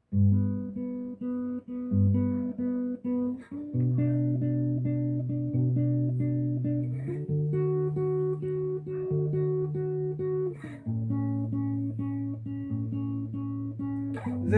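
Acoustic guitar playing a picked chord pattern, repeating notes over slowly changing chords: the introduction before the singing comes in.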